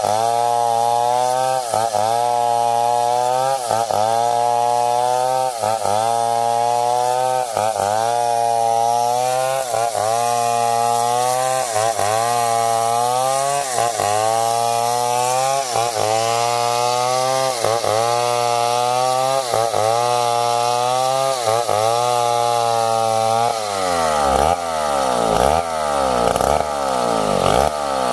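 Stihl 070 two-stroke chainsaw cutting wood under load, its engine pitch dipping and recovering about every two seconds as the bar bites. About three quarters of the way in, the engine's pitch starts swinging widely up and down as the revs rise and fall.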